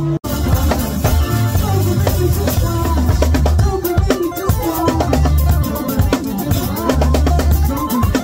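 Live band music driven by a drum kit: a steady kick-and-bass groove under dense cymbal and snare hits. A brief dropout just after the start.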